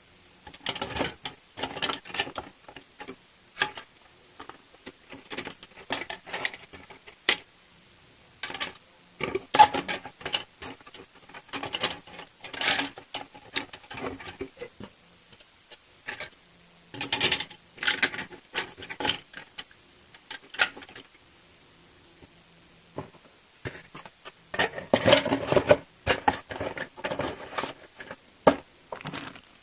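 Plastic model kit parts in their bags and the cardboard kit box being handled and packed: irregular rustling, clicking and knocking in bursts, with short pauses between.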